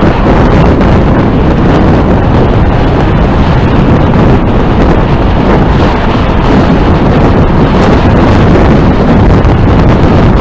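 Wind buffeting the microphone of a camera riding on a moving electric bicycle: a loud, steady, low rumble of noise.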